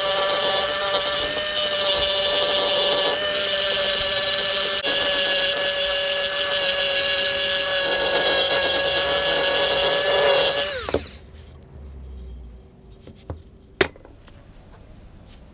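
Handheld rotary tool with a small sanding drum running at high speed against a wooden hammer handle: a steady whine over a sanding hiss. About eleven seconds in it is switched off and spins down with a falling whine, and a single sharp click follows near the end.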